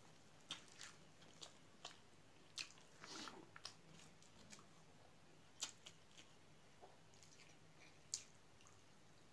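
Hand mixing and squeezing cooked rice with curry on a steel plate: faint squishes and a dozen scattered sharp clicks at irregular times, with a longer squelch about three seconds in.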